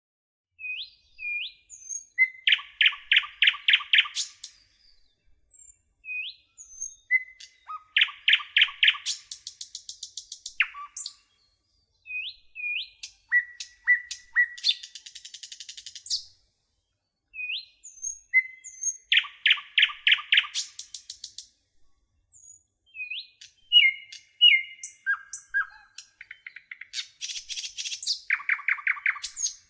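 Nightingale singing: a run of separate phrases, each opened by short upslurred whistles and built of fast trains of repeated notes, some a rapid rattle and others loud ringing pulses, with a pause of a second or two between phrases.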